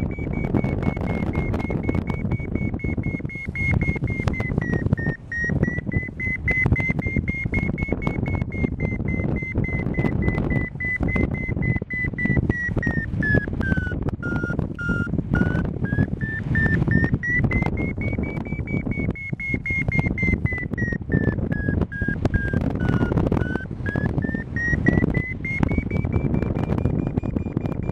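Paragliding variometer sounding its climb tone, the pitch wandering up and down with the strength of the thermal lift and dipping lower twice, the first time in the middle. Loud, gusty wind rushes on the microphone underneath it.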